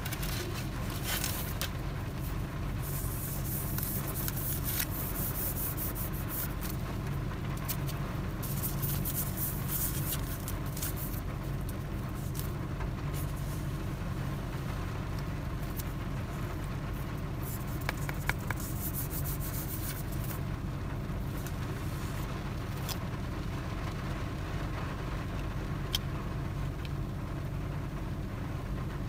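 Hands handling a phone screen protector and its paper packaging, crinkling and scraping in spells, over a steady low rumble.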